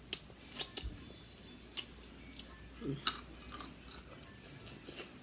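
Crab shell being cracked and snapped apart by hand: a string of short, sharp cracks and clicks, the loudest about three seconds in.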